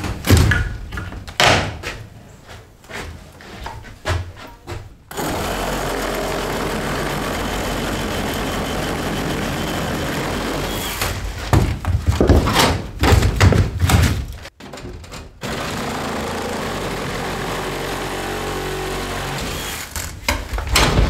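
A cordless reciprocating saw cutting through wood in two long steady runs, with sharp knocks and heavy thuds of wood being struck and pried loose before, between and after them.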